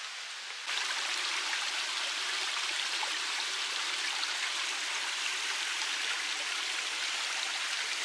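Shallow stream running over rocks, a steady rushing of water. It comes in suddenly, louder, under a second in, replacing a quieter outdoor hiss.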